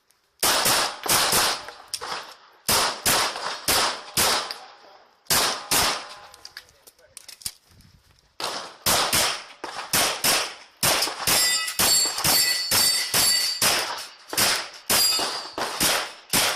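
Pistol fire during a timed match stage: fast strings of shots, a lull of about two seconds near the middle, then rapid shooting again, with steel targets ringing after hits in the latter part.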